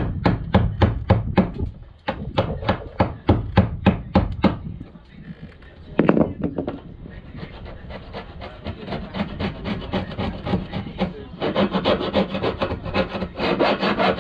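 Old paint on a boat's deck panel being sanded by hand, heard as back-and-forth rasping strokes about four a second. The strokes break off briefly about two seconds in and again around five, then come back faster and closer together.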